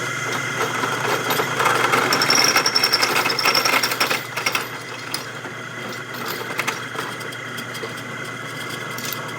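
Handheld electric drill with a 3/8-inch bit running steadily while drilling out bolt holes in a powder-coated steel idler bracket. The motor note grows louder and harsher from about a second and a half in until about four seconds in as the bit cuts, then settles into a steadier run.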